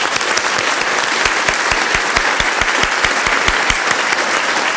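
A large seated audience applauding steadily, with close claps standing out at an even beat of about four a second through the middle.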